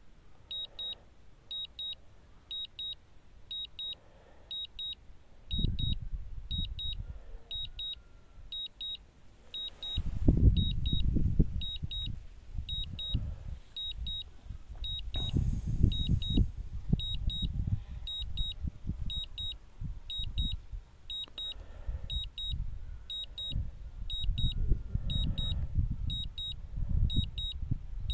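Steady repeating pairs of short, high electronic beeps, about three pairs every two seconds: the DJI Phantom 3 Advanced's critical low battery alarm while the drone auto-lands. From about six seconds in, a louder, irregular low rumbling noise sits beneath the beeps.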